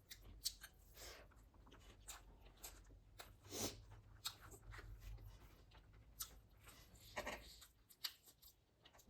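Faint eating sounds: a person chewing and crunching food, with scattered small clicks and a couple of louder noisy moments, about a third of the way in and again near the end.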